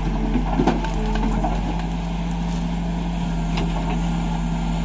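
Case 770 backhoe loader's diesel engine running steadily as the backhoe arm dumps its load and swings back into the pit. There are a few brief knocks in the first second.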